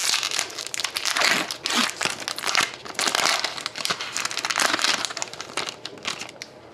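Trading card pack wrapper being torn open and crinkled by hand. Irregular crackling that eases off near the end.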